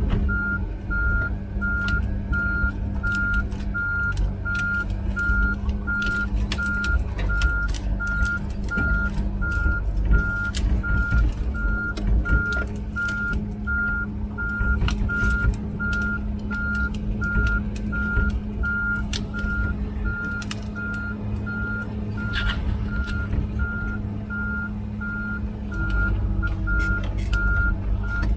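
Komatsu PC16 mini excavator travelling on its tracks, its diesel engine running steadily while the travel alarm beeps evenly at one pitch, about twice a second, with clanks and rattles from the machine.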